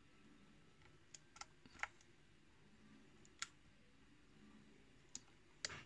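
Lock pick working the pins of a kick-cylinder challenge lock, picked from the front pin after a reset. It gives a handful of small, sharp clicks at uneven intervals as pins are pushed and set under tension, the loudest near the end.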